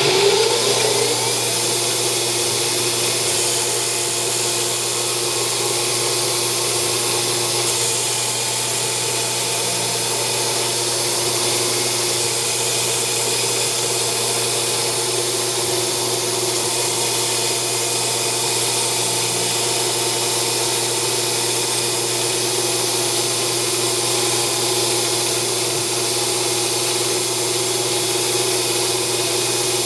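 Grizzly G0602 lathe spindle spinning up with a short rising whine, then running steadily with a constant motor whine while a turning tool faces the end of aluminium round stock.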